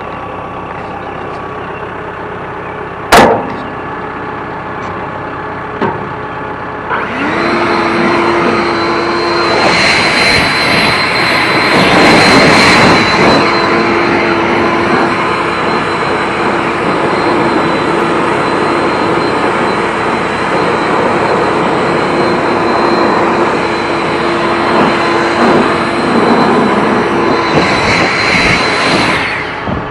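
An engine-driven machine running steadily. There is a sharp click about three seconds in. About seven seconds in it grows louder, with a steady hum that holds until near the end.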